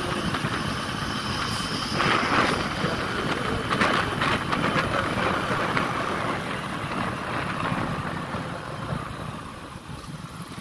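Motorcycle riding at road speed: engine running under a steady rush of wind noise, with louder bursts about two and four seconds in.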